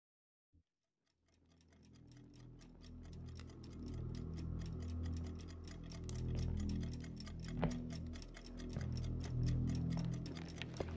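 Clock ticking quickly and evenly, fading in about a second in over a low steady drone. A single sharp knock about two-thirds of the way through stands out above it.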